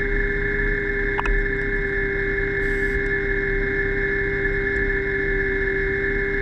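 Diver propulsion vehicle's electric motor and propeller running at a steady speed underwater: a constant whine at an unchanging pitch over a low rumble, with one brief click about a second in.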